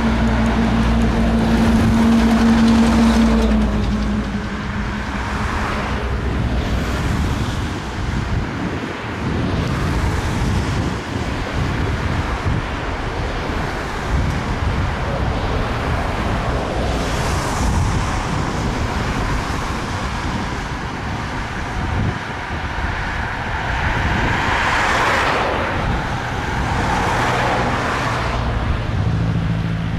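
Jet airliner engines running, a steady rushing noise with a low hum for the first few seconds, swelling twice in the second half.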